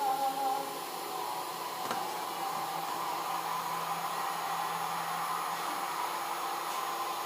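Mini three-axis CNC router's spindle motor running steadily, a constant whirring noise.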